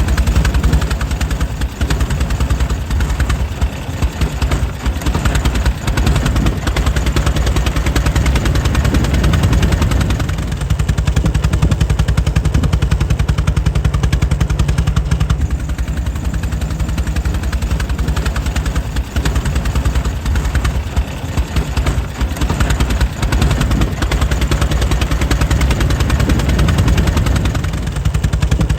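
Air-cooled engine of a 1904 Mitchell car running steadily, a quick, even train of firing beats with a deep low end.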